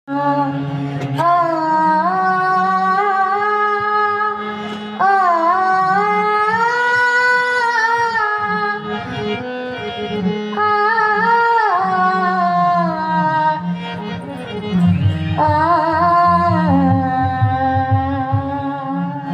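A woman singing a Marathi devotional song to Vitthal, in long held, ornamented phrases over a steady harmonium accompaniment.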